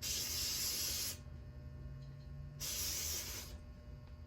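Aerosol can of starting fluid spraying in two hissing bursts, about a second each, the second coming a little over a second after the first, as carburetor parts are sprayed out to clean them.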